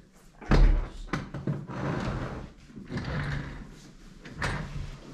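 Gua sha tools and their cloth pouch being handled and put down: a heavy thump about half a second in, a knock, rustling, and another knock near the end.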